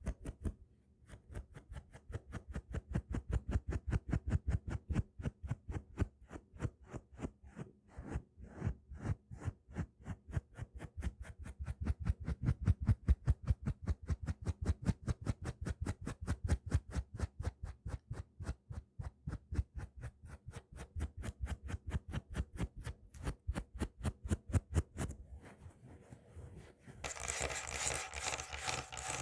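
Fingernails scratching and tapping fast on a hard object, in an even rhythm of about five strokes a second. The strokes die away near the end. After a short pause a denser, continuous scratching on a rougher surface begins.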